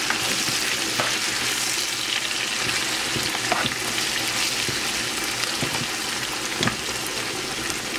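Chopped onions, leeks, eggplant and peppers sizzling in oil in a frying pan, stirred with a wooden spoon that scrapes and knocks against the pan a few times.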